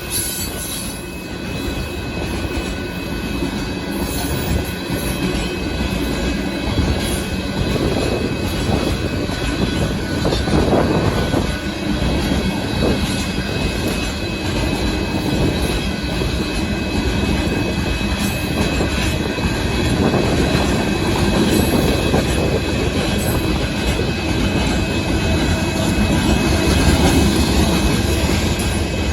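Union Pacific freight train of hopper cars rolling past, a continuous rumble and rattle of steel wheels on the rails with thin steady high-pitched squeal tones above it.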